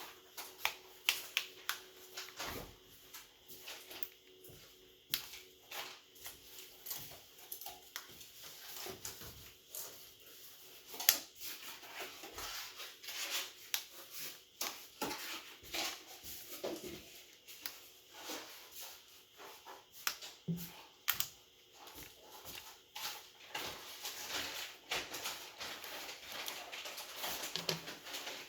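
Irregular small clicks, taps and light scraping of tools and phone parts being handled on a workbench during a Realme C33 smartphone teardown, with one sharper click about a third of the way in.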